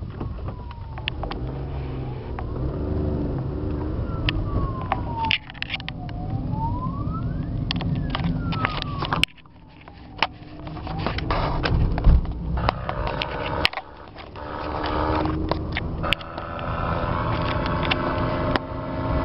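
Road and engine noise inside a moving car, with sharp knocks from handling the camera. A thin tone glides down and up several times over a few seconds each, and the sound drops suddenly about nine seconds in before building up again.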